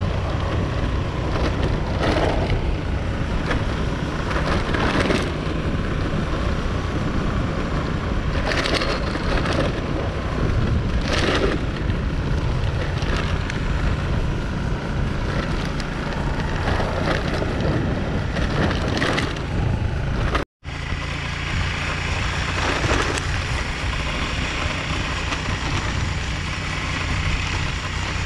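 Motorbike engine running while riding, with wind buffeting the microphone in gusts. The sound cuts out for a moment about twenty seconds in, then carries on the same.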